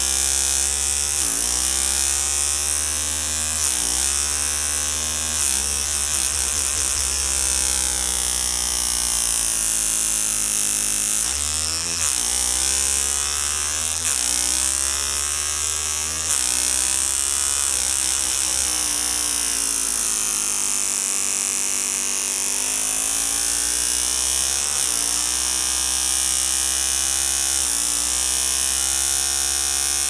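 Electric toothbrush pressed against the throat buzzing while he hums through it, imitating a motorbike engine. The pitch climbs and drops back every few seconds, like a motorbike revving through its gears.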